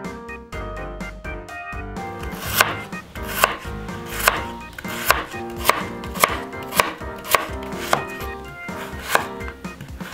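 Kitchen knife slicing daikon radish on a bamboo cutting board: crisp knocks of the blade meeting the board, roughly one to two a second, starting about two seconds in, over soft piano background music.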